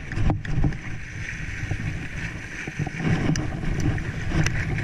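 Sea water sloshing and washing against the rocks, with wind buffeting the microphone in a steady low rumble.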